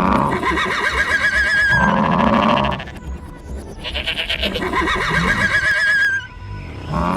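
Cartoon farm-animal calls, two long wavering cries, over background music.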